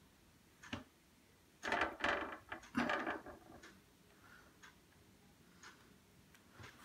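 Carton of béchamel squeezed by hand over a baking pan, with two short noisy spurts of sauce about two and three seconds in. A clock ticks faintly about once a second throughout.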